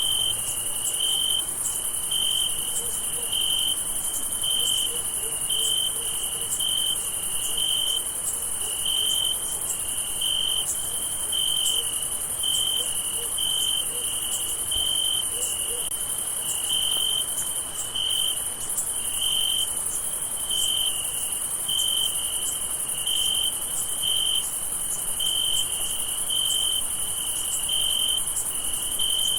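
Night chorus of crickets: a steady high-pitched trilling, with one nearer cricket chirping in an even rhythm of about one and a half chirps a second.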